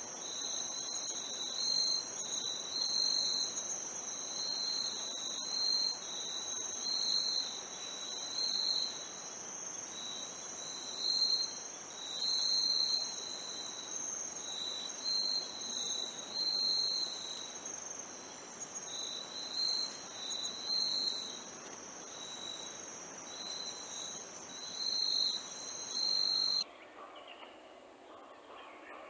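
Insects chirring: one steady high-pitched trill, with a second, slightly lower call that swells and breaks off about once a second. Both stop abruptly near the end, leaving quieter outdoor background.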